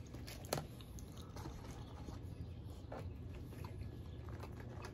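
Faint chewing and eating sounds, with a few soft clicks, over a low steady background hum.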